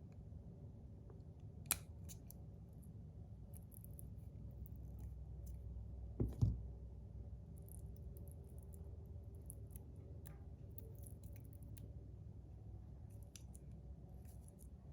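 Hands working on a small 3D-printed plastic slider fidget: a sharp click about two seconds in, a pair of knocks about six seconds in and scattered faint ticks over a low steady hum.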